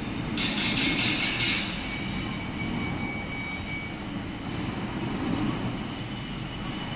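Machine-shop machinery running: a steady low rumble, with a loud high hiss pulsing about five times a second during the first second and a half and a thin high whine that fades out about four seconds in.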